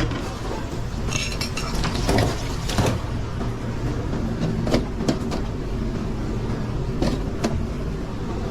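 Commercial kitchen line at work: a steady low mechanical drone, with pans and utensils clinking and knocking now and then, half a dozen sharp knocks in all.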